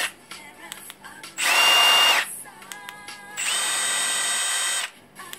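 Milwaukee M12 Fuel stubby impact wrench's brushless motor spinning free in short trigger pulls with no load: a loud whine lasting under a second about a second and a half in, then a longer, steady run from about three and a half to nearly five seconds. Light clicks from the mode-selector button come between the runs.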